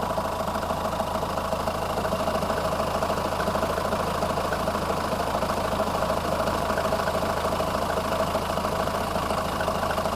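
Renault 1.9 dCi four-cylinder turbodiesel idling steadily with a fast, even rattle, which the owner thinks may come from the auxiliary belt or its pulleys.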